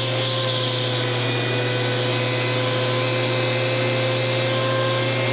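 Pneumatic random orbital sander running steadily against the back of a wooden guitar neck: an even whine and air hiss during finish sanding of the neck.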